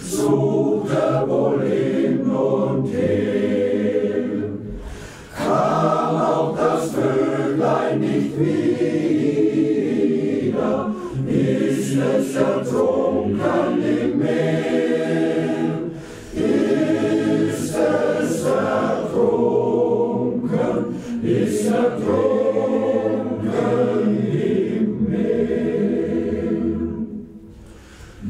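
Choir singing in sustained phrases, with brief breaks between phrases about five, sixteen and twenty-seven seconds in.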